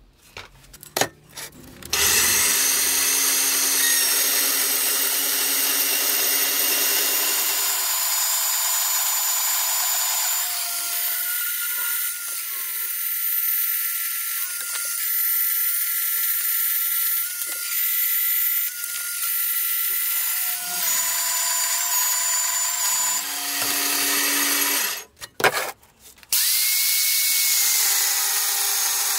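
Power tool running in a workshop, a steady whining machine noise that starts about two seconds in after a few knocks. It stops suddenly near the end and starts again about a second later.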